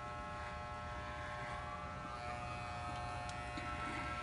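Corded electric hair clipper buzzing steadily as it trims hair.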